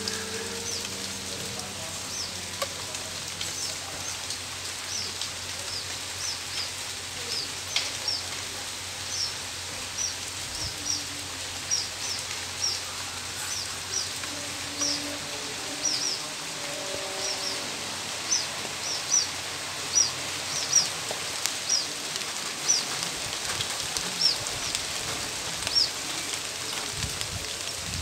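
Steady rain hiss, with a bird's short, high, falling chirps repeated about one to two times a second.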